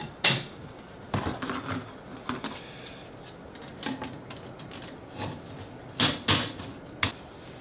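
Thin perforated metal panel handled and set down into the rabbet of a wooden frame: light metallic rattles and taps, with a few sharper clicks about six to seven seconds in.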